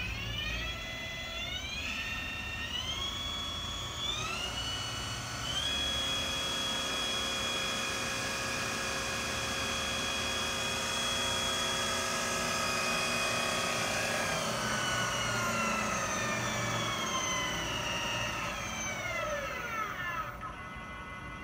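Jet JDP-20 variable-speed drill press's spindle motor and gear drive whining as the speed knob is turned up in steps to about 2000 RPM. The whine holds steady, then slides down in pitch as the spindle slows and drops away about a second before the end.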